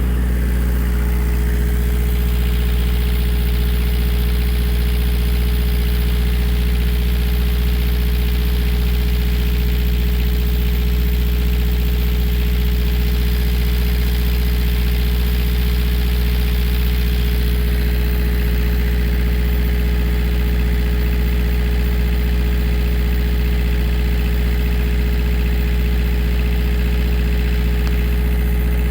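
A 16 kW marine generator running steadily at constant speed, with a noisy hiss over the engine tone. Its exhaust is leaking and spraying salt water.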